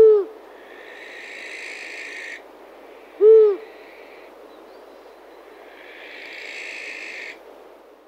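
An owl hooting twice, two short single hoots about three seconds apart, over a soft background hiss with two spells of high chirring.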